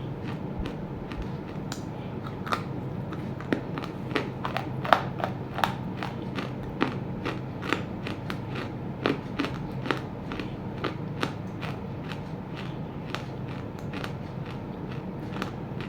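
Roasted clay chunks crunching and cracking between the teeth: irregular sharp cracks and crackles, clustered most thickly in the middle, over a steady low hum.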